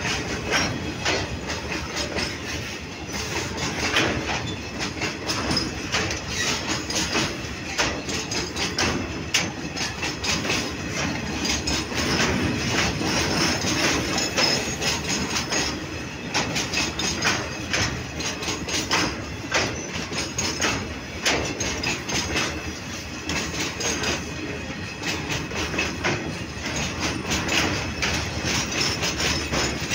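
A long freight train of open wagons rolls past, its steel wheels clattering and knocking over the rail joints in a continuous run of clicks.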